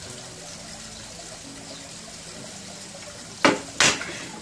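Two sharp knocks about three and a half seconds in, a third of a second apart: emptied glass beer bottles set down hard on a table.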